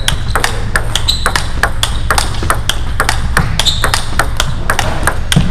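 Table tennis rally: the ball clicks sharply off paddles and table in quick, irregular succession, some hits leaving a short high ring. A steady low hum runs underneath.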